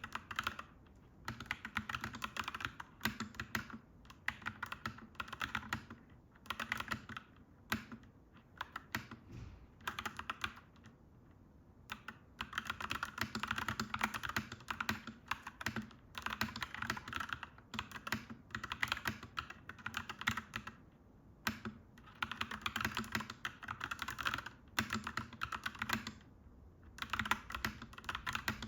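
Mechanical keyboard being typed on, clacky keystrokes in quick runs broken by short pauses, with one longer unbroken run about halfway through.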